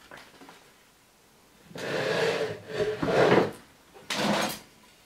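Rustling and scraping of potting soil and a terracotta pot being handled while a plant cutting is potted up, in three bursts about two, three and four seconds in.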